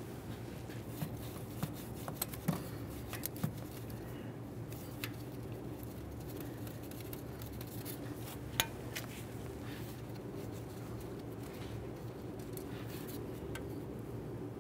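Scattered metallic clicks and clinks of a hand tool at work on the engine as the camshaft position sensor's single mounting bolt is taken out: a handful in the first few seconds, one more a little after eight seconds. A steady low hum runs underneath.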